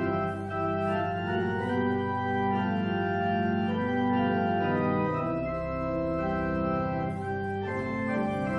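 Organ playing slow, sustained chords over a held bass, the chords changing every second or so.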